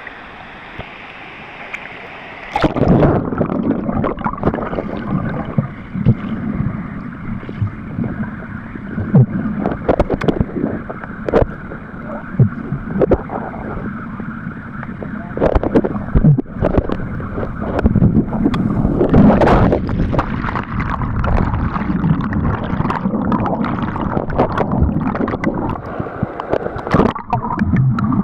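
River rapids rushing at the surface, then the microphone goes under about two and a half seconds in: muffled gurgling and bubbling of the river current heard underwater, with frequent sharp clicks and knocks.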